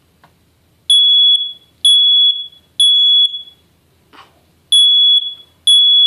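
First Alert SA68 smoke alarm sounding on its test button: a high-pitched beep three times about a second apart, a pause, then the next round of three beginning. This is the temporal-three evacuation pattern, showing the alarm's horn works.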